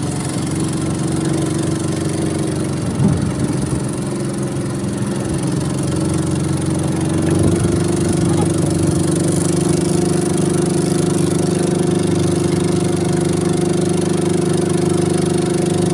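A small boat's engine running steadily while under way, its pitch stepping up slightly and getting a little louder about seven seconds in.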